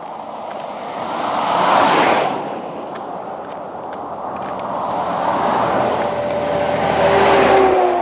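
Highway traffic passing close by: two vehicles go past one after the other, each a rush of tyre and engine noise that swells and fades, the second dropping in pitch as it passes.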